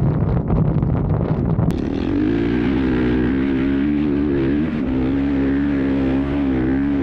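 Rumbling wind noise on the microphone. After a click about two seconds in, a vehicle engine holds a steady drone whose pitch wavers slightly.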